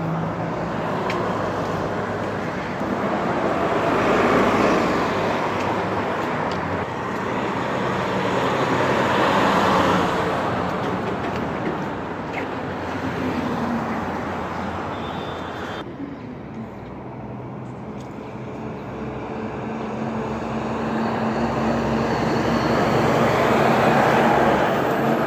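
Heavy vehicles driving past one after another on a city street: a transit bus, a box truck and a rear-loader garbage truck, engine and tyre noise swelling and fading with each pass. The garbage truck, passing near the end, is among the loudest.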